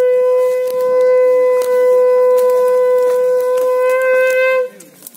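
Conch shell (shankha) blown in one long, loud, steady note that lifts slightly at the end and stops about four and a half seconds in.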